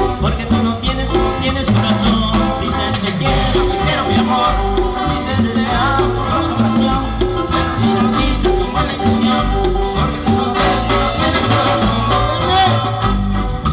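A band playing upbeat Latin dance music, with a pulsing bass line, percussion and a shaker keeping the rhythm.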